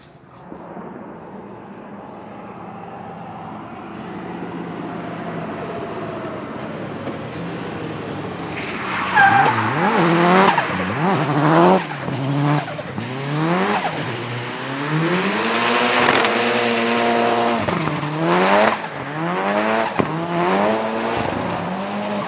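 A Nissan 200SX drift car's turbocharged engine draws closer, then from about nine seconds in revs hard up and down again and again as the throttle is blipped through a drift, with tyres squealing.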